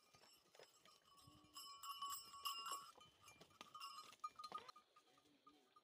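Herd of goats walking along a stony path, bleating faintly, with scattered clicks and a faint high ringing in the middle.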